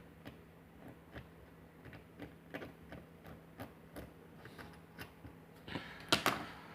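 Small metallic clicks and taps, about two a second, from tools and parts of a padlock being worked on during disassembly, with a louder sharp clatter of metal near the end.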